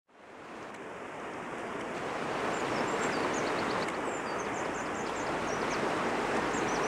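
River water rushing through a rapid around a log raft, a steady noisy rush that fades in at the start, with a few faint high chirps above it.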